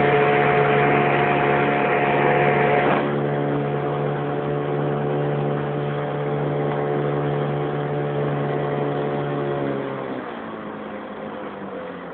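1964 Evinrude Sportwin 9.5 hp two-cylinder two-stroke outboard motor running steadily with the boat under way. The rushing noise drops about three seconds in, and near the end the engine slows, its note falling and getting quieter.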